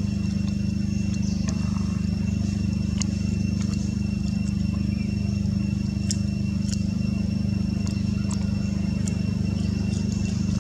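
A steady low hum runs without change, with a faint steady high whine over it and scattered light clicks.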